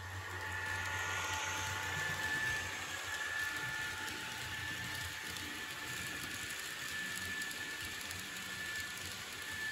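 N-scale tank wagons rolling along model track, their small metal wheels making a fine, even rattling clatter. Under it runs a steady high whine from the model electric locomotive.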